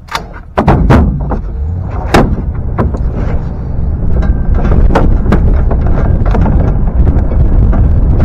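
Rifle shots fired from the bed of a moving pickup truck, a string of sharp cracks at irregular intervals. Under them the truck's driving noise and wind rumble loudly, starting about half a second in as the truck pulls away.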